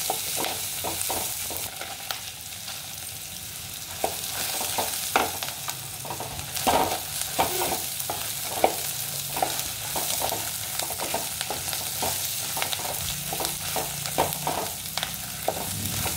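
Wooden spatula scraping and stirring in an aluminium kadai, in repeated irregular strokes, over a steady sizzle of onions, coriander seeds, a bay leaf and dried red chillies frying.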